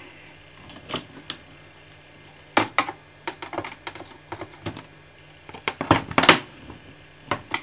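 Sharp clicks and taps of hard plastic from hands and a small screwdriver working at the screws of an Apple keyboard's plastic casing. They come scattered and in short runs, loudest about six seconds in.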